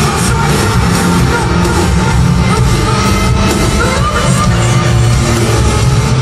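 Live pop concert music: a band playing loudly with a woman singing into a microphone, crowd noise mixed in.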